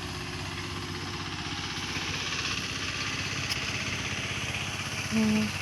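A small engine idling steadily in the background, its low hum even throughout.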